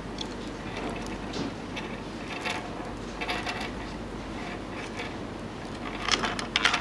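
Faint rustling and light scraping of stiff fluorocarbon fishing line being handled by fingers while a figure-of-eight knot is tied, over a steady low hum of room tone.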